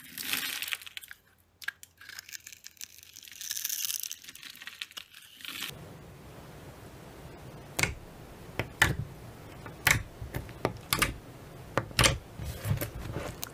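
Crisp crackling of a blade cutting and crumbling a dry blue soap block, breaking off about six seconds in. It is followed by fingers pressing into thick clear slime, which gives a run of sharp sticky pops and clicks about once a second.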